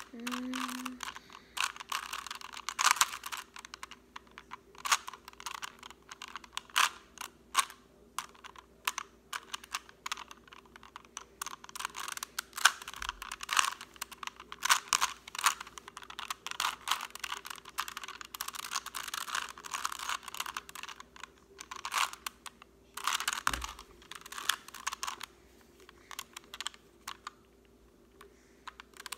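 Plastic Rubik's cube being turned by hand: rapid, irregular clicking and clattering of the layers in runs with short pauses, thinning out near the end.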